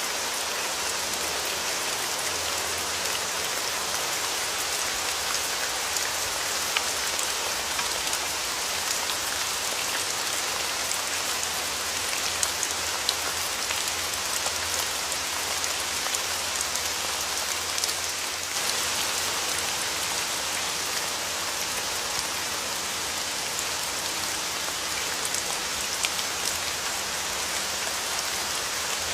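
Steady rain falling, with a constant hiss of drops and occasional distinct drop ticks.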